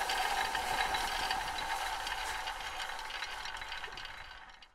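Crackling, hissing old-film sound effect with scattered clicks, fading out near the end.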